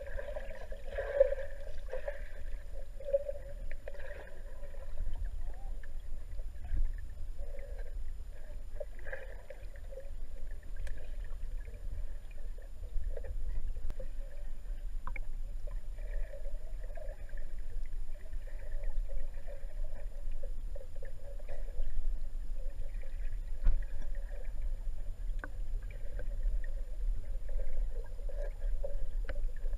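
Muffled underwater water noise picked up by a camera below the surface: a steady low rumble with irregular, dull sloshing of moving water.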